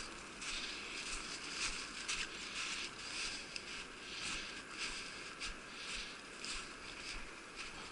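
Footsteps crunching through snow at a steady walking pace, about two steps a second.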